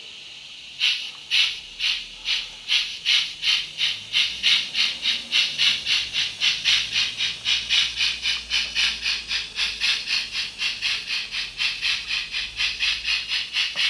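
Model steam locomotive chuffing as it pulls away. The hissy chuffs begin about a second in and quicken from about three to about five a second, with a faint low hum underneath.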